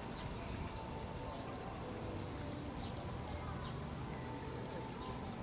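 Outdoor ambience: a steady high chirring of insects over a low rumble.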